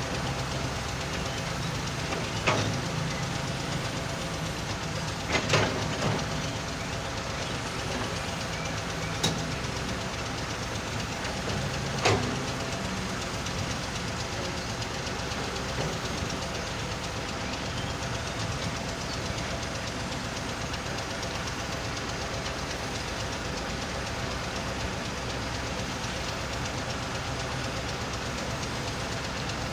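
Excavator and stone-and-sand screening machine running steadily on diesel power while the excavator loads the machine. A few sharp knocks come in the first half, near 2, 5, 9 and 12 seconds.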